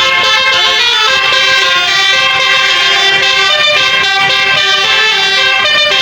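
Tour bus's basuri melody horn playing a tune, loud and sustained, with several horn notes sounding together and the chord shifting to new notes about a second in.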